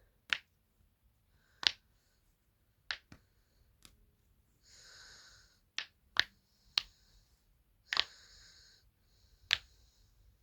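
Silicone pop-it fidget toy having its bubbles pressed through: about ten sharp pops at irregular intervals, with soft hissing sounds between some of them.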